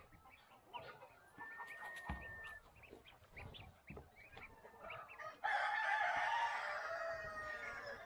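A rooster crowing once, a long call starting about five and a half seconds in, the loudest sound. Under it, short soft peeps from newly hatched goslings at the nest.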